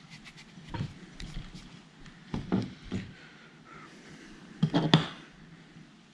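Light clicks and knocks of a small spinning fishing reel being handled as its handle is taken out, with the loudest few knocks about five seconds in.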